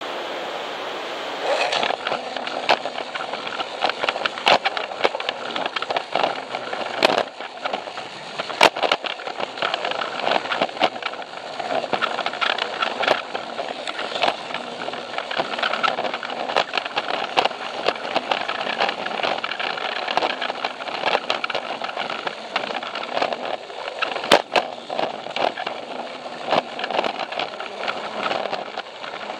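Plarail toy train's small battery motor and plastic gearbox running, with its wheels rattling and clicking over the joints of the plastic track, heard from on board the train. It starts off about a second and a half in, then runs steadily with frequent sharp clicks.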